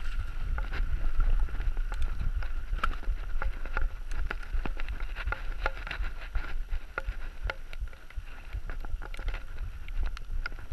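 Mountain bike rattling down a rough, wet gravel trail: tyres on gravel and many sharp knocks from the bike jolting over stones, with a deep wind rumble on the microphone and a steady high whine.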